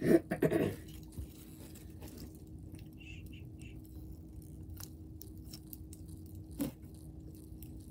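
Foam-bead slime (floam) being stretched and squeezed close to the microphone, giving faint scattered crackles and small pops, with one sharper click near the end.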